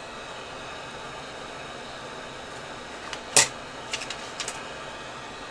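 Hot air rework gun blowing a steady hiss at high airflow and full heat while it preheats a circuit board to desolder a component. A sharp click comes a little past the middle, followed by a few light ticks.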